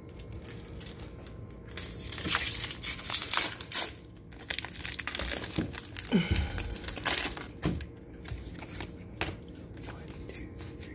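Foil booster pack wrapper being torn open and crinkled by hand, in two spells of rustling about two and five seconds in.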